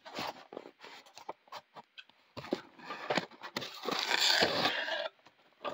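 Irregular scrapes, taps and rustling from things being handled, with a denser stretch of rustling from about two and a half to five seconds in.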